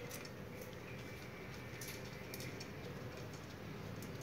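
A guinea pig nibbling and nudging a red ball on hay: a string of small irregular clicks and scratchy rustles, over a faint steady hum.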